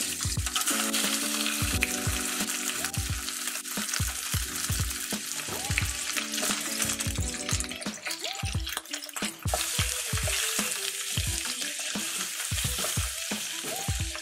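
Pork belly slices sizzling in hot oil in a small aluminium camp cooker pan as more are laid in, a steady crackling hiss, under background music with a steady drum beat.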